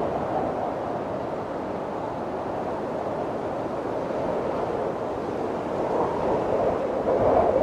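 Snowstorm wind blowing steadily, swelling into a louder gust with a wavering, moaning pitch near the end.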